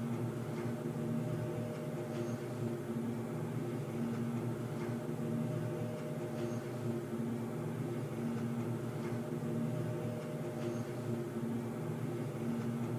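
Underground ambience: a steady, low droning hum made of several held tones over a soft noise bed, one tone swelling and fading every few seconds, with a few faint ticks scattered through it.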